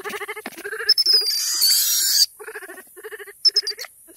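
Baby vervet monkeys calling in repeated short, stuttering cries, the sound of upset infants. About a second in, a harsh, shrill burst lasts about a second and is the loudest sound.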